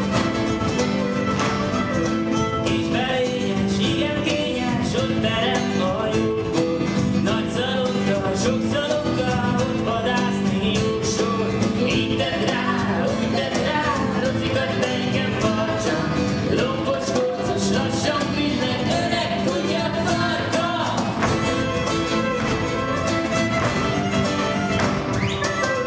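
A live band playing a folk-style song, with acoustic guitar and clarinet and a man singing.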